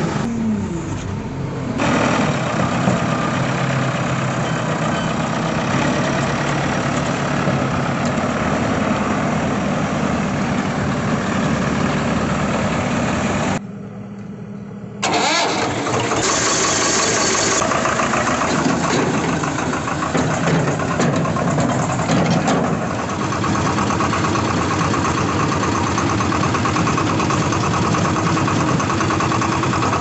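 Diesel engine running steadily close by. About halfway, after a short drop in level, the Swaraj 724 XM tractor is started with its ignition key: a brief starter cranking, then its diesel engine runs.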